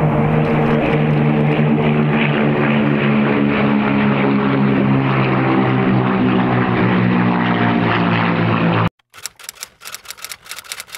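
Piston engines of a four-plane formation of propeller aerobatic aircraft, trailing smoke as they pass overhead, making a loud, steady drone. The drone cuts off suddenly about nine seconds in and is replaced by rapid typewriter key clacks.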